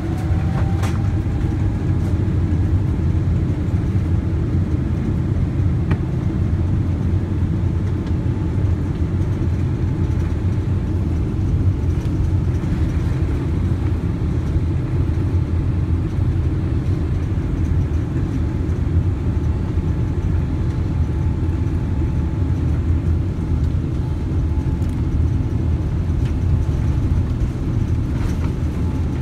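Cabin sound of a Boeing 777-300ER's GE90-115B engines at takeoff thrust during the takeoff roll: a loud, steady low rumble with a faint engine whine above it, which levels off about a second in.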